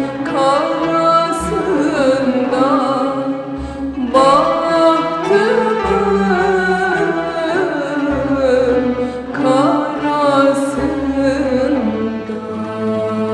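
A woman singing a Turkish song in a winding, ornamented vocal line over instrumental accompaniment. About twelve seconds in, the voice stops and a held instrumental note carries on.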